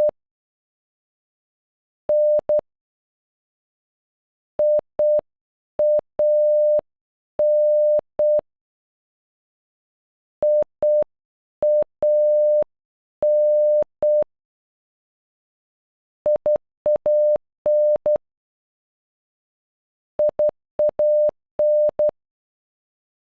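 Morse code beeps in a single steady mid-pitched tone spelling "IAN" (.. .- -.), short dots and longer dashes. The name is played twice slowly, then twice at normal speed.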